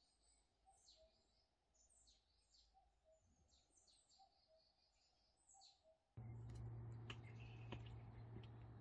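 Wild birds chirping, quick falling high notes every half second or so, with a faint low two-note call repeating behind them. About six seconds in, the sound cuts abruptly to a louder steady low hum with hiss and scattered clicks.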